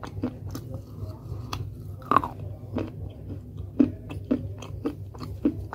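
Close-up crunching and chewing of dry clay pot pieces in the mouth: irregular crisp crunches a few times a second, the sharpest about two seconds in and again near four seconds, over a low steady hum.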